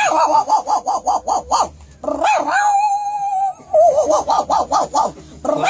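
A dog giving quick runs of short, high yips, about six a second, with one long held note in the middle.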